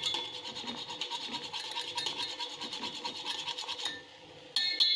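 Wire whisk stirring quickly in a stainless steel pan of hot milk and melted jaggery, its wires scraping the pan in a fast, even rhythm. The whisking stops just before four seconds in, and near the end a ringing metallic clink sounds.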